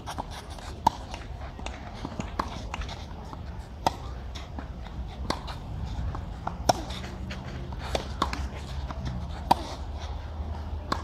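Tennis rally on a clay court: sharp racket-on-ball hits about every second and a half, exchanged back and forth.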